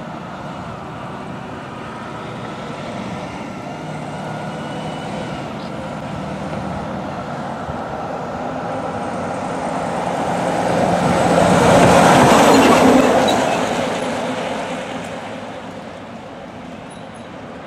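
Fire engine driving past: its engine and tyre noise builds steadily to a peak about twelve seconds in, then fades as it moves away.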